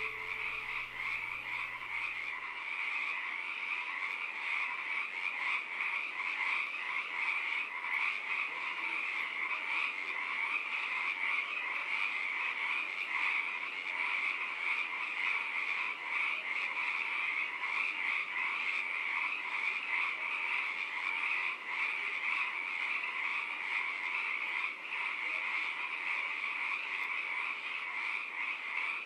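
A dense, steady chorus of frogs calling, a rapid pulsing trill with no break. The last low notes of the music fade out in the first two seconds.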